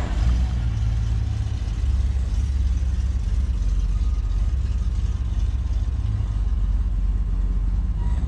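A vehicle engine running at a steady idle, a low, even rumble with no revving.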